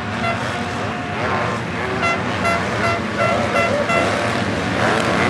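Several MX2 motocross bikes racing, their engines revving up and down as they go over the jumps. From about two to four seconds in, six short high toots sound, about three a second.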